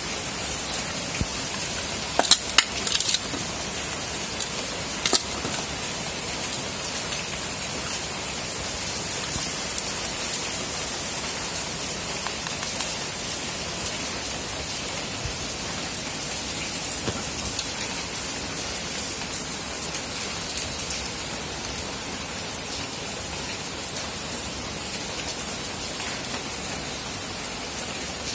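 A steady, even hiss like rain fills the background, with a few sharp clicks in the first five seconds as potting mix is scooped out of a steel bowl into a small plastic plant pot.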